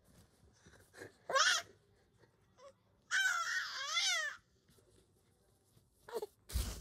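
Five-month-old baby vocalizing in cry-like squeals: a short call rising and falling, then a longer, wavering one about three seconds in, and a brief one near the end. He is playing with his voice, not crying. A soft thump near the end.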